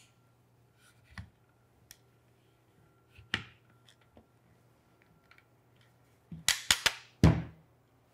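Light clicks and knocks from a Peak Design Travel Tripod being handled as its center column is slid back into the hub. Near the end comes a quick run of four or five sharp, louder knocks as the tripod is set down on the table.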